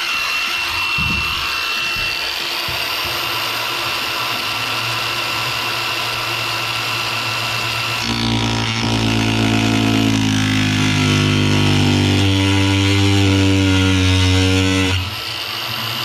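Power saw running steadily with a high whine as it cuts. From about halfway, music with held synth notes that step in pitch comes in over it and grows louder.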